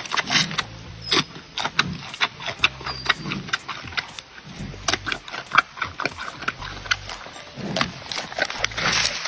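A giant panda chewing a bamboo shoot: a dense, irregular run of sharp crunches as it bites and chews.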